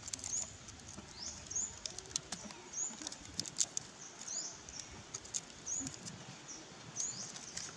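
A long-tailed macaque handling and chewing food, with sharp crackles and clicks of peeling and munching. Behind it, a bird gives a short high chirp over and over, about once a second.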